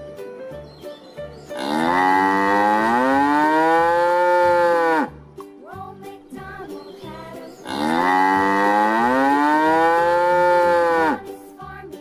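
A cow mooing: two long, loud moos a few seconds apart, each rising and then falling in pitch. A light, rhythmic music track plays underneath.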